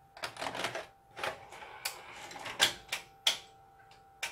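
A VHS cassette is pushed into the front-loading slot of a Victor BR-8600 VCR and drawn in by the loading mechanism. There is a run of plastic clicks and rattles, then two sharp clunks about two and a half and three and a quarter seconds in, and one last click near the end.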